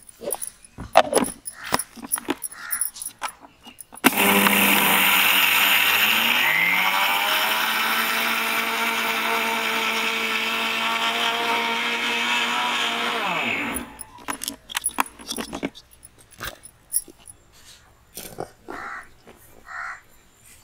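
Electric mixer grinder's stainless-steel jar powdering granulated sugar: about four seconds in the motor starts with a loud whir that climbs in pitch as it comes up to speed, runs steadily for about nine seconds, then is switched off and winds down. Before and after, clicks and knocks of the jar and its lid being handled.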